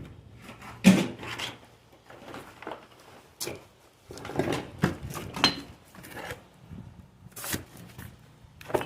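Stone and mortar being worked by hand while facing a chimney: irregular scrapes, rubs and knocks, with the sharpest knock about a second in.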